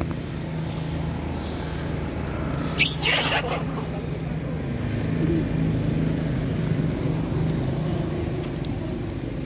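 A steady low hum, like a motor running, with one short, loud rushing burst about three seconds in.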